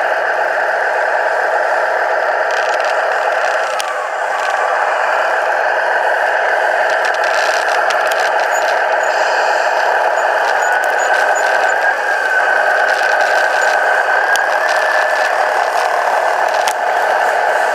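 Tamiya Scania radio-controlled truck driving, heard from on board: a steady mid-pitched running sound from the truck with light rattling, dipping briefly about four seconds in and rising a little in pitch about halfway through.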